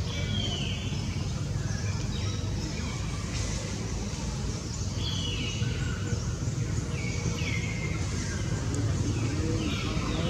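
Repeated high animal calls, each falling in pitch and lasting about half a second, coming every second or two over a steady low rumble.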